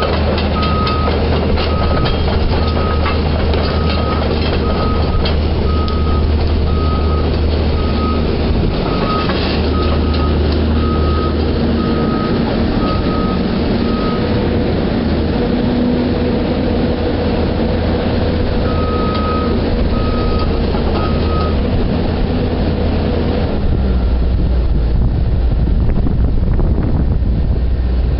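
Heavy machinery back-up alarm beeping at about one and a half beeps a second over a heavy diesel engine's low rumble. The beeping stops about halfway through, comes back for a few beeps, then stops again, and the engine note drops lower near the end.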